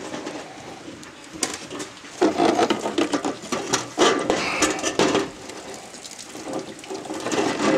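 Clattering knocks of a Gold Cube concentrator's plastic tray and perforated screen being gripped and lifted. The sharpest knock comes about a second and a half in, and the busiest clatter falls between about 2 and 5 seconds.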